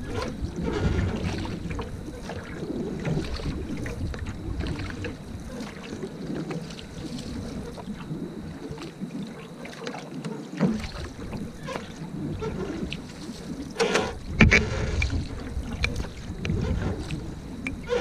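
Single-blade paddle strokes pulling a canoe through flat water, with water swishing along the hull and wind rumbling on the bow-mounted camera's microphone. A sharp, louder knock comes about fourteen seconds in.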